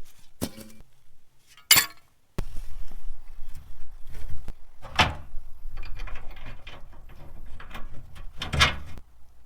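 Metal clunks and clanks from fuel-tank straps being handled and fitted under a pickup: four sharp knocks, the loudest about two seconds in, with rattling and scraping between them.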